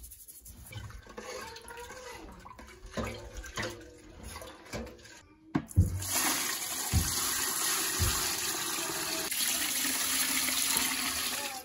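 Turkey brine poured from a stainless steel stockpot into a plastic bucket over a raw turkey: a loud, steady rush and splash of liquid starting about halfway through and running for some five seconds. Before it, light knocks and scraping of a plastic spoon stirring the brine in the pot, and a sharp thump just as the pour begins.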